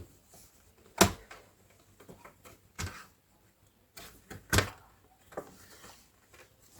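Sharp plastic clicks and snaps from an HP 240 G7 laptop's bottom cover as its clips are pried loose, three loud ones about two seconds apart with a few smaller taps between; the cover is fitted tight.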